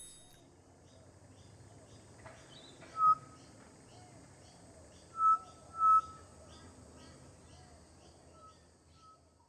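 Outdoor birdsong recording: a bird gives short, clear whistled notes, one about three seconds in and a quick pair a couple of seconds later, with fainter repeats near the end. Other birds chirp faintly and rapidly in the background.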